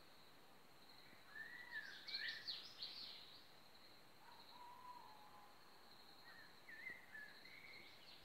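Faint birdsong: a burst of chirping, warbling calls about one to three seconds in, a lower drawn-out whistle near five seconds, and a few more chirps near the end, over a steady faint high-pitched tone.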